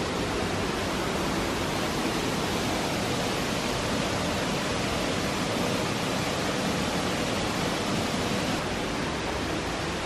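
Steady rush of the Afon Mynach's waterfalls tumbling down the rocky ravine.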